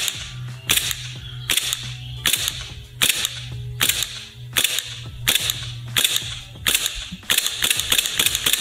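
Army Armament R17 gas blowback airsoft pistol (a Glock 17 replica) firing single shots at a steady pace, about one every three-quarters of a second, each a sharp crack as the slide cycles. Near the end it fires a quick string of shots.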